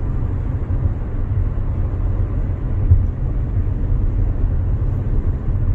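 Steady low road and engine rumble inside the cabin of a Hyundai SUV being driven, with no distinct events.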